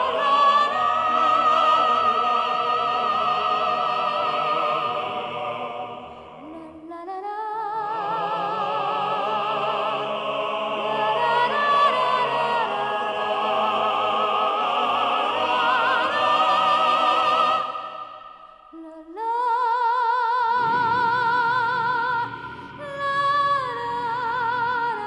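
A female soprano singing in operatic style with strong vibrato and long held notes over instrumental accompaniment, her line breaking off briefly twice.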